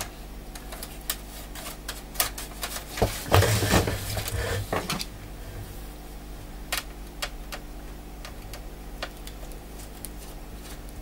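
Plastic clicking and rattling from an HP g7 laptop's cracked top case and a small screwdriver being handled, with a denser stretch of clatter and scraping from about two to five seconds in. The case is coming apart as it is lifted.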